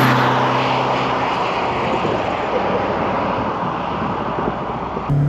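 Renault 5 Turbo 2's turbocharged four-cylinder driving past and away. Its engine note drops slightly in pitch as it goes by, then the engine and road noise fade steadily as it recedes.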